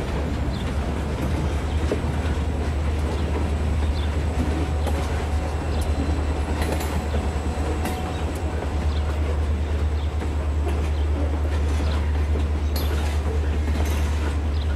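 N scale model train running on the layout: a steady low hum with light clicking of the wheels over the rail joints, the clicks coming thicker near the end.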